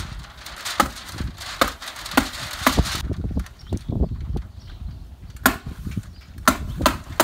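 A hand tool fastening Tyvek house wrap to the wall around a door frame: about seven sharp, irregularly spaced strikes. The plastic wrap rustles in the first few seconds.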